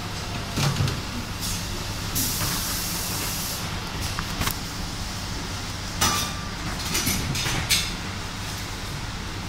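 Automatic filter integrity tester running a bubble point test on a PTFE filter cartridge: a steady low hum, broken by short hisses of compressed air and a few sharp clicks of its valves.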